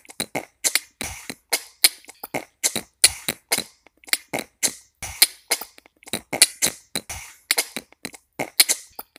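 Human beatboxing: a fast run of short percussive mouth sounds, about three to four a second, with brief silences between.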